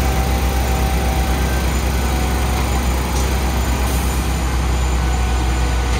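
Concrete mixer truck's diesel engine running steadily with a deep, even rumble.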